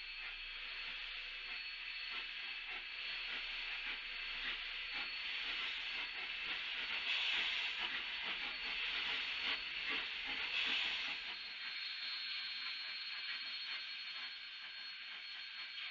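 K-36 narrow-gauge steam locomotive passing close by, hissing steam, loudest about seven to eleven seconds in, with a thin steady high whine underneath.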